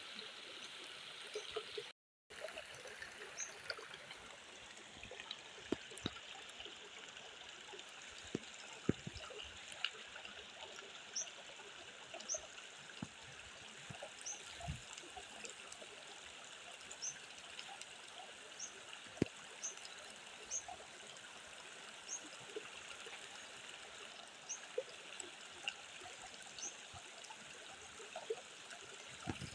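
Shallow stream running and trickling over rocks, with scattered light knocks and clicks of bamboo sticks being handled and set down in the water. A faint high chirp recurs about once a second.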